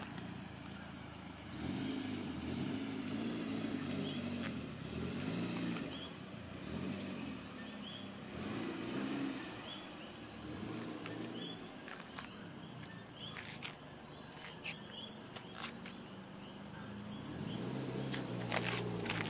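Mitsubishi Lancer Evolution X's turbocharged four-cylinder running through a full 3-inch custom Magnaflow exhaust with an AFE intake. It hums low, swelling and fading, and gets louder near the end as the car comes closer. Crickets chirp steadily in the background.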